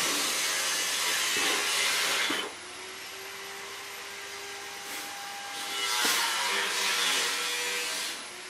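A neighbour's power tool, heard from next door, cutting wood with a loud, even hiss for about two and a half seconds. It drops to a quieter running hum with a steady whine, then cuts again from about six seconds until shortly before the end.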